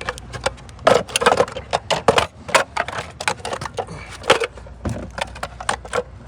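Irregular clicks, taps and knocks of hard plastic cup holder parts being handled and set against each other.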